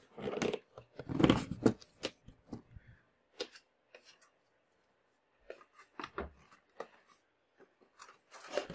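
Cardboard monitor box being handled and opened by hand, flaps rubbing and knocking. A burst of scraping and rustling about a second in, scattered light taps after, and another bout of rustling near the end.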